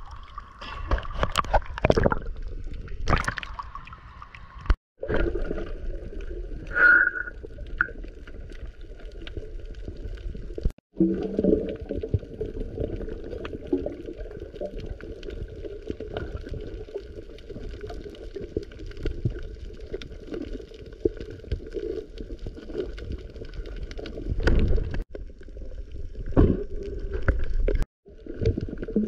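Water gurgling and sloshing with a steady hum underneath, broken by a few sharp knocks near the start and near the end. The sound cuts out abruptly for a moment several times.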